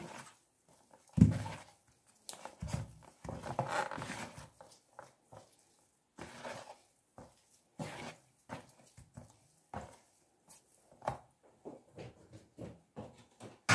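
Hands kneading soft risen yeast dough in a plastic tub, pressing and folding it to knock out the air: irregular squishing and patting sounds, with a louder thump about a second in.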